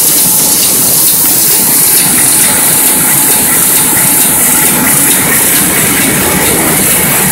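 KBA sheetfed offset printing press running in production: loud, steady machine noise with a strong hiss over it.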